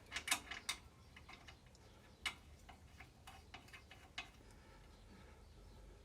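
Light, irregular metallic clicks and taps from tools and parts being handled during the front suspension work. A quick run of clicks comes at the start, then single clicks every second or so.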